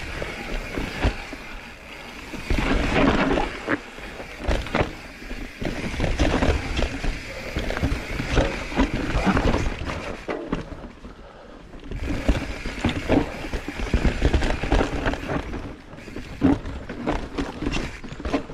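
Mountain bike being ridden over a rough, technical trail: tyres rumbling on the ground with frequent knocks and clatters from the bike over the bumps. The noise eases off briefly about ten seconds in, then picks up again.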